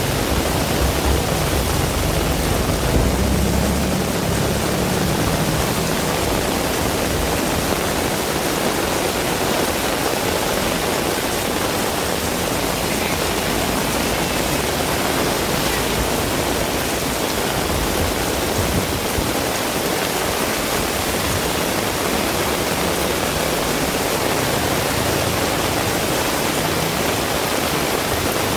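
Heavy rain falling steadily as a dense, even hiss. A low rumble sits under it for the first few seconds.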